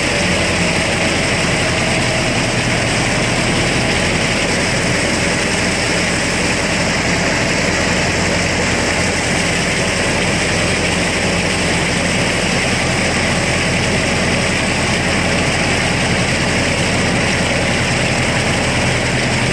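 Mahindra Arjun Novo 605 DI-i tractor's diesel engine running steadily under load, driving a rotavator whose spinning blades churn through wet paddy mud.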